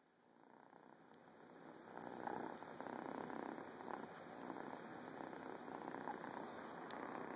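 Tortoiseshell cat purring steadily close to the microphone, rising in level over the first couple of seconds.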